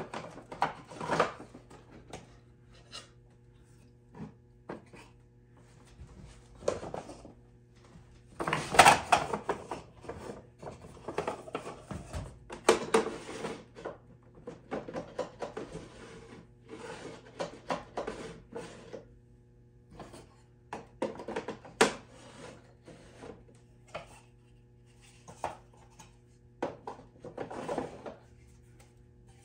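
Small wooden drawers of an oak machinist's chest being slid in and out and pushed into place: intermittent wood-on-wood scraping and knocks, the loudest about nine seconds in and a sharp click a little past twenty seconds. A steady low hum runs underneath.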